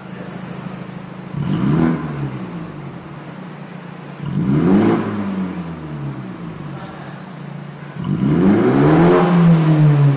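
BMW M235i (F44) engine idling and revving through an RES valved aftermarket exhaust. A steady idle is broken by three throttle blips, each rising and falling in pitch: a short one about a second and a half in, another around five seconds, and a longer, louder one held for about two seconds near the end.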